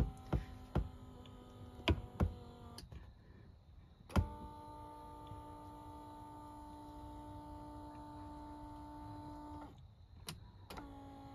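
The power lumbar support motor in a 2010 Honda Pilot front seat runs with a steady electric whine, moving the lumbar plate in and out now that the repair is done. It stops and starts several times, with sharp clicks at the start and between runs.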